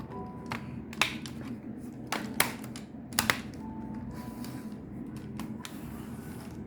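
Sharp plastic clicks and taps as a laptop's fan access panel is fitted and pressed into place, about eight clicks with a couple in quick pairs, over a low steady hum.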